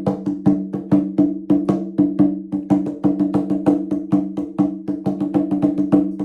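Instrumental music: a steady repeating run of short struck, pitched notes, about four or five a second, each ringing briefly and dying away.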